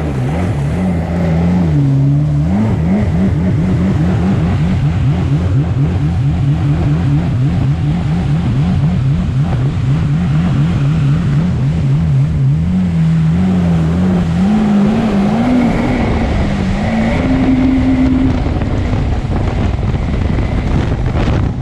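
Jet ski engine running under way, its pitch wobbling rapidly about four to five times a second, then climbing higher in steps later on.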